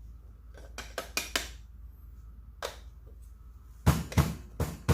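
Hard clinks and knocks of metal against metal: the hand grinder's grounds catcher being tapped against the dosing funnel to knock out the last espresso grounds. A few light clicks come about a second in, then a quick run of about five loud knocks near the end.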